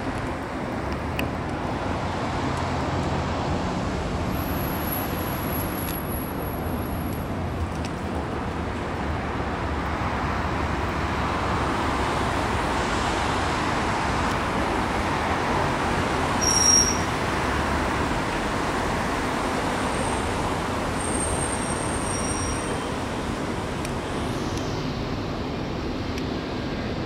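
Steady road traffic noise from an elevated expressway, swelling a little in the middle. One short, sharp, high-pitched click or ring about seventeen seconds in.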